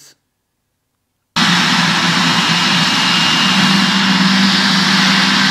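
GE90 turbofan engines of a Boeing 777 running at high thrust: a loud, steady jet noise with a low hum and a thin high whine. It starts abruptly about a second in.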